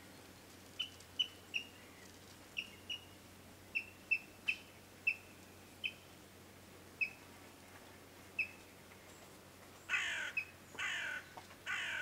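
Yellow-billed kingfisher calling: about a dozen short, sharp high notes at irregular intervals, then three longer, raspier calls in quick succession near the end.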